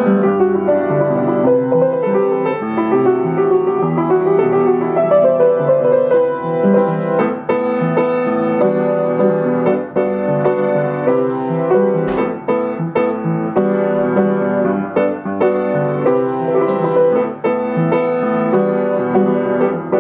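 Background piano music, a steady flow of notes and chords, with one brief click about twelve seconds in.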